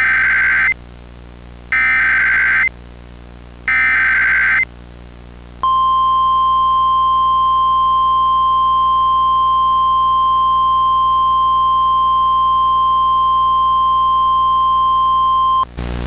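Emergency Alert System SAME header: three short bursts of screeching digital data, about two seconds apart. These are followed by the single-tone NOAA Weather Radio-style attention signal, a steady high beep held for about ten seconds. It cuts off into a brief hiss of static at the very end.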